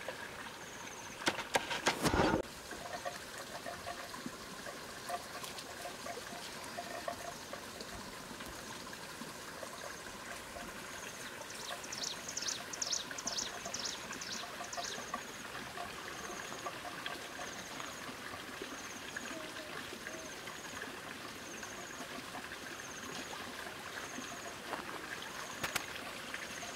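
Outdoor countryside ambience: a steady hiss with a short high chirp repeating about once a second, and a quick run of high chirps about halfway through. A burst of rustling comes about one to two seconds in.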